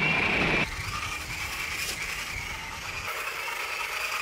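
RC tracked snowcat's electric drive motors and gearboxes whining steadily with track noise as it drives over ice plant. Loud and close at first, then abruptly quieter with a fainter whine under half a second in.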